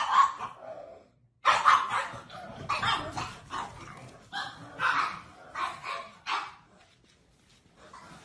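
Pugs barking: a few sharp barks, a short break about a second in, then a run of repeated barks that stops about six and a half seconds in.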